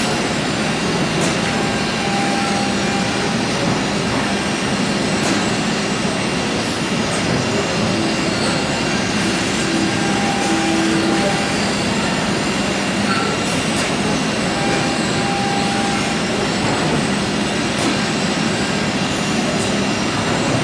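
Steady machine noise of a robot-tended CNC machining cell, an even hum with short higher tones that come and go every few seconds as the robot arm moves.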